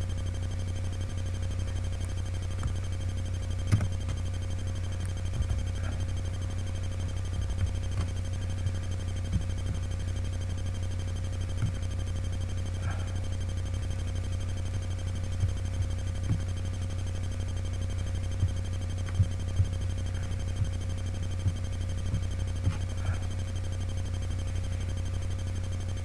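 Steady low hum with a faint steady higher tone, broken by scattered small clicks and light knocks.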